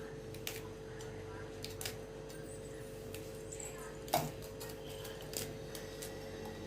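Betel leaves being cut into small pieces: a few sparse, light clicks and snips, the sharpest about four seconds in, over a steady faint hum.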